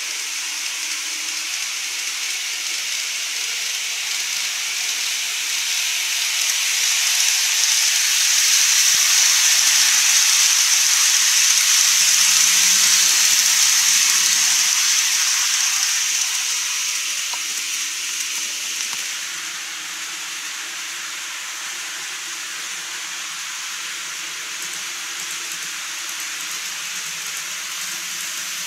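N-scale model of a Keikyu 1000-series train running on a model viaduct, its wheels and motor making a steady high hiss. The hiss swells as the train approaches, is loudest as it passes close by, and then fades away.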